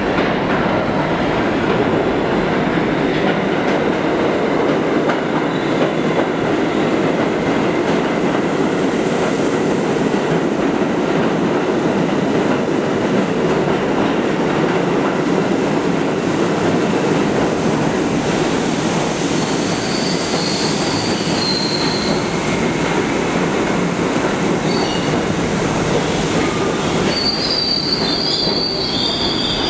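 A New York City Subway train of R68A cars pulling into a station, its cars running past on the rails with a loud, steady rumble. From about two-thirds of the way through, intermittent high-pitched squeals come in and grow strongest near the end.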